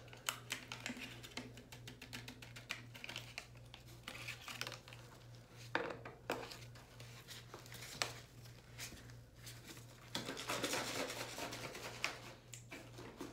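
Crinkling and rustling of a paper powder packet as hair color remover crystals are tipped into a plastic water bottle, with small clicks of handling. About ten seconds in, the capped bottle is shaken to dissolve the crystals.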